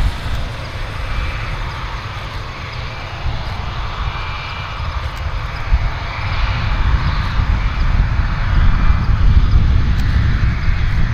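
Airbus A220-300's Pratt & Whitney PW1500G geared turbofans at high power on the takeoff roll: a steady low rumble with a thin high whine over it, growing louder in the second half as the jet accelerates closer.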